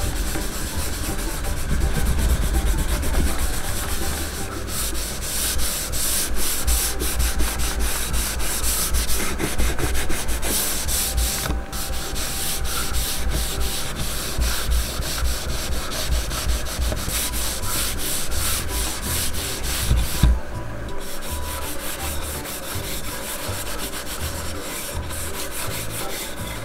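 A cloth rubbing beeswax cream into a wooden cutting board: dense back-and-forth scrubbing of cloth on wood, briefly interrupted twice.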